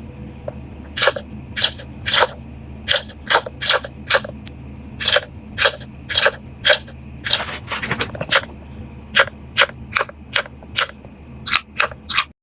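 A homemade Nido squishy toy being squeezed again and again, crinkling sharply with each squeeze: short crackly bursts at roughly two a second, some in quick runs, over a steady low hum.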